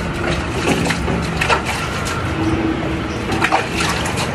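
Washing a dog by hand in a concrete sink: wet rubbing and splashing, with a few sharp knocks and clacks, two of them close together about three and a half seconds in.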